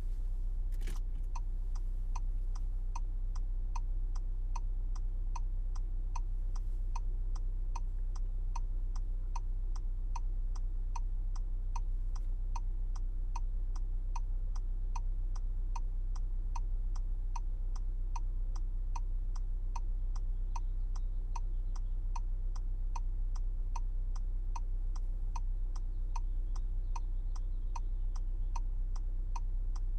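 2026 Volkswagen Jetta hazard-light indicator ticking evenly, about two ticks a second, starting just after a single switch click about a second in. A steady low hum of the idling engine runs underneath.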